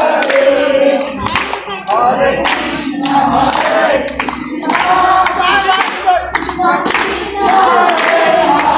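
A group of devotees singing a Hari kirtan together in held, chanted phrases, with hand claps.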